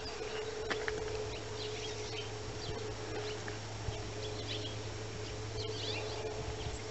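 Scattered faint bird chirps over a steady low hum.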